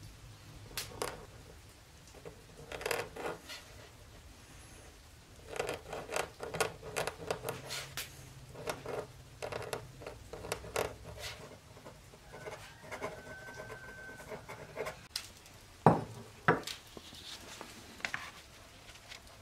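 Dip pen nib scratching across paper in short strokes of cursive handwriting. Near the end come two sharp knocks.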